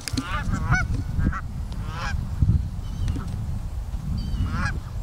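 A flock of Canada geese honking: a scattered series of short calls from several birds, over a steady low rumble.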